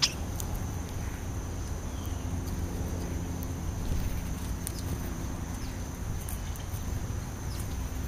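European starlings and house sparrows feeding: scattered faint short chirps and pecking clicks, with a brief call right at the start, over a steady low rumble.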